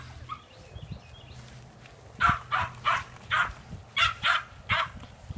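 West Highland white terrier puppies yapping: about eight short, high barks in quick runs, beginning about two seconds in.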